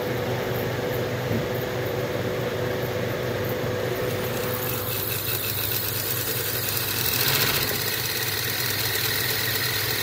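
Used inverter-drive refrigeration compressor running off a VFD with a steady hum and heavy vibration. The owner suspects it is slugging liquid refrigerant and that the compressor may be bad. A mid-pitched whine fades out about halfway through, and there is a brief rush of noise about seven seconds in.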